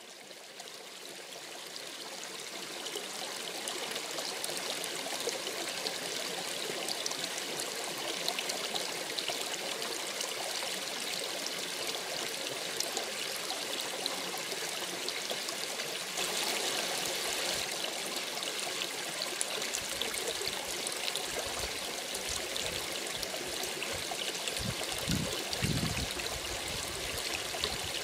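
Small mountain brook trickling and splashing over a low step between rocks: a steady rush of water that fades in over the first few seconds. A few low rumbles come in during the last several seconds.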